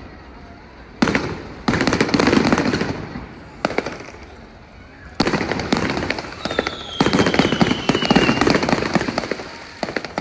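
Fireworks going off in several rapid clusters of bangs and crackles, with quieter gaps between them and a falling whistle in the middle.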